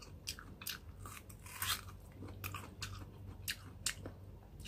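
Biting into and chewing raw green mango close to the microphone: a string of short, crisp crunches at an irregular pace.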